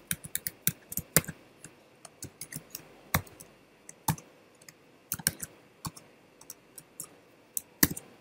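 Typing on a computer keyboard: irregular keystrokes in short runs with pauses between, a few strikes louder than the rest.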